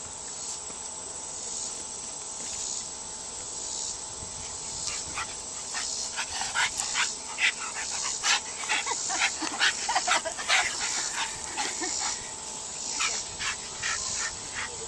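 Dogs playing, with a flurry of quick clicks and scuffling from about five seconds in and a few short high whines in the middle.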